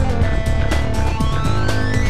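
Loud background music with a fast, steady drum beat under sustained tones.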